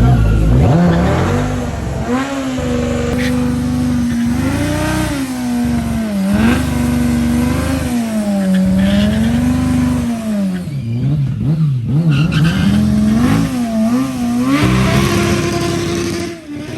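Motorcycle engine running under way, its pitch rising and falling again and again as the throttle opens and closes and the gears change. It holds a steady higher note near the end before it cuts off.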